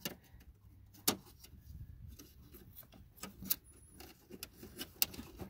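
Scattered light clicks and ticks of a hand turning the blower motor's fan wheel and brushing the plastic cabin air filter housing of a 2001 Buick LeSabre, with a few sharper clicks about a second in and again later; no rattle of leaves in the fan.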